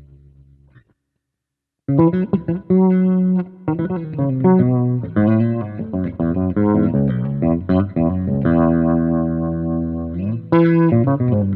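Leones KJ 5 electric bass guitar being played: a held note fades and cuts off, then after about a second of silence comes a run of plucked notes and short phrases, with one note held for about two seconds near the end before the playing picks up again.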